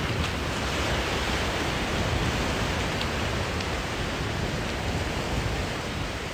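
Ocean surf washing up the beach, a steady rushing hiss, with wind rumbling on the microphone.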